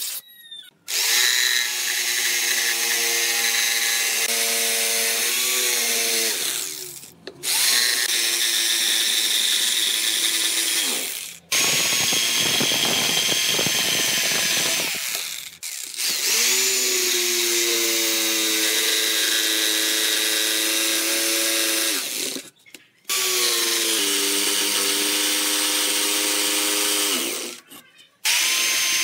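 Corded electric jigsaw cutting through a thick wooden board, running in five or six stretches broken by short pauses. The motor's whine falls as it winds down at the end of each stretch, and one stretch is harsher and rattling as the blade saws the wood.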